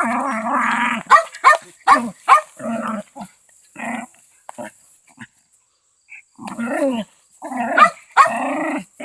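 A dog barking and growling in rough play: a run of short, sharp barks, then longer growling calls, a brief pause in the middle, then more barks and growls.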